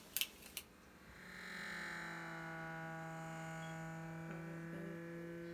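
A few sharp clicks as a small plastic cosmetic jar is handled, then a steady electrical hum with a low tone and overtones fades in about a second in and holds.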